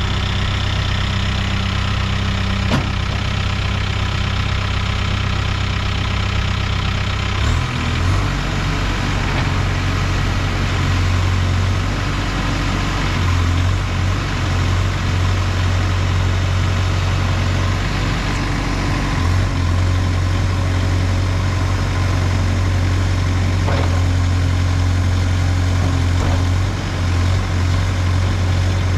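Case 851EX backhoe loader's diesel engine running at a steady idle, its note shifting briefly about seven and a half seconds in.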